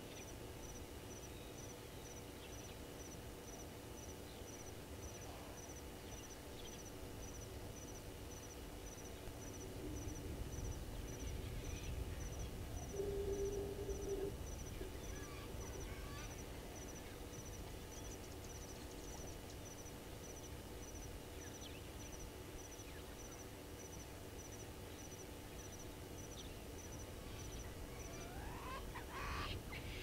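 Faint bushveld ambience: scattered short bird calls, a brief low call about halfway through and a quick sweeping call near the end, over a high, even ticking about twice a second.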